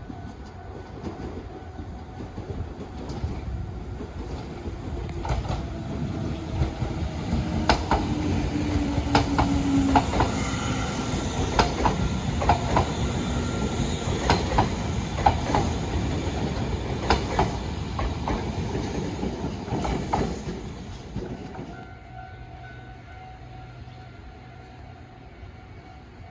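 An electric train passing close by: its rumble builds, wheels clack sharply over rail joints, and a short falling whine is heard as it comes level, then the sound fades away over a couple of seconds.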